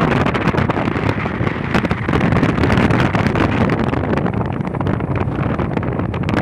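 Wind buffeting the microphone on the deck of a boat at sea: a loud, steady rush with crackling gusts.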